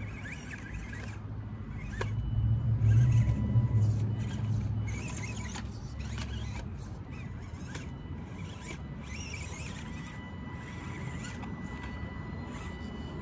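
Element Enduro24 1/24-scale RC crawler's small motor and gears whining in short throttle bursts as it crawls over rocks. A louder low rumble comes in about two seconds in and fades out by about five seconds.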